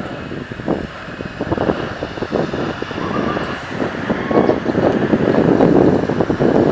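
Jet airliner noise from a Boeing 737 on its landing roll, mixed with wind buffeting the microphone; the rushing noise grows louder in the second half.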